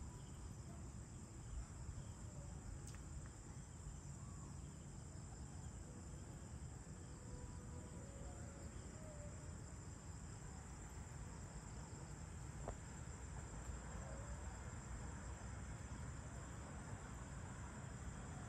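Faint evening chorus of insects: a steady, high-pitched trill runs over a low rumble. Two brief clicks come about three seconds in and again near thirteen seconds.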